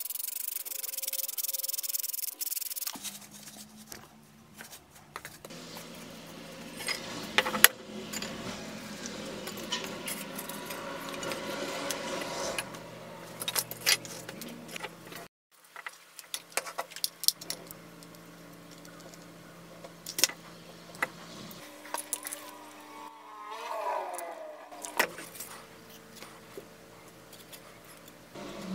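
Hand sandpaper rubbing on a cast aluminium hatchet handle for about three seconds. Then scattered clinks, taps and handling rattles of the metal hatchet over steady background music.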